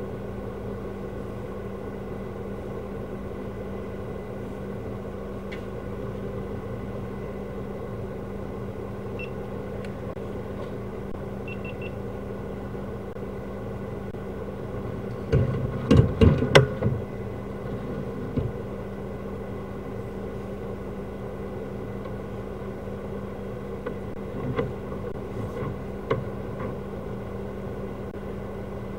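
Engine of a high-pressure drain jetter running steadily, with a burst of loud knocks and clatter about halfway through and a few lighter clicks near the end.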